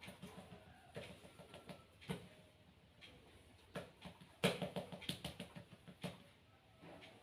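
Hands working on a body during a massage: irregular soft knocks, pats and rubbing, with a quick flurry of taps about halfway through.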